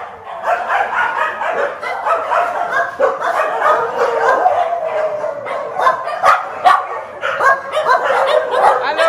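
Many shelter dogs in wire-mesh kennels barking and yipping at once, a continuous overlapping din of many voices.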